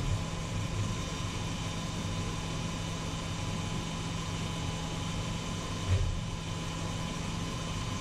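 Subaru Forester's 2.5-litre flat-four idling steadily while it warms to operating temperature, burping air out of the freshly refilled cooling system, with a steady fan-like rush over the engine note. There is a brief low bump about six seconds in.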